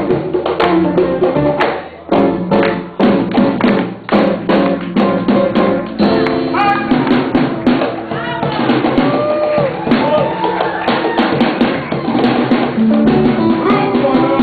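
Live Afro-Peruvian band music: sharp hand-percussion and drum strokes keep a quick rhythm, and about six seconds in a voice with sliding pitch comes in over the sustained accompaniment.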